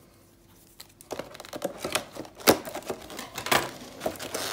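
Clear plastic packaging bag crinkling and rustling as hands open it, with a few sharp clicks and snaps. About the first second is nearly quiet before the handling starts.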